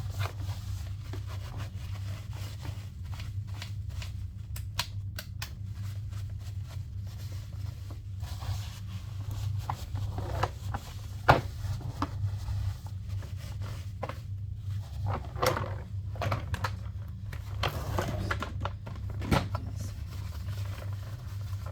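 Dry paper towel rubbing and crackling over the plastic body of a Henry vacuum cleaner as it is buffed, with scattered clicks and one sharp knock about halfway through, over a steady low hum.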